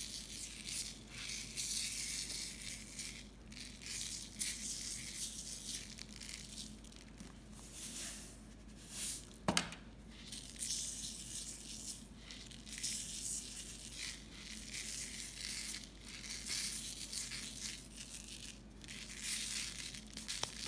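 Table salt sprinkled and rubbed by hand onto glue-covered paper in a metal baking tray: a grainy hiss that comes and goes, with one sharp tap about halfway through.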